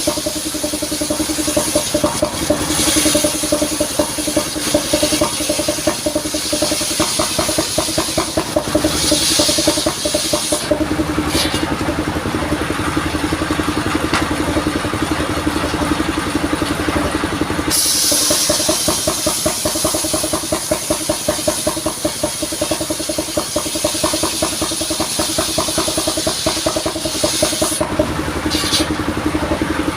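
The engine of a modified saw vehicle running steadily, driving a saw blade through coconut-palm wood. The high hissing noise of the cut drops out for several seconds about a third of the way through, then resumes, with another brief gap near the end.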